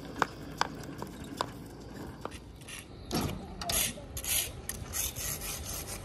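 Hand-pushed thermoplastic road-marking applicator rolling over asphalt, its marking shoe scraping and rasping along the road as it lays a line. A few sharp metal clicks come in the first two seconds, then louder hissing rasps around the middle.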